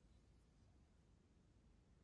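Near silence: room tone, with one faint click a little under half a second in.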